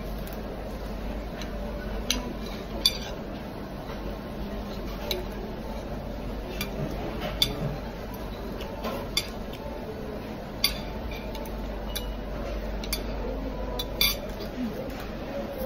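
Metal fork and spoon clinking and scraping against ceramic plates, with a sharp clink every second or two over a steady low hum.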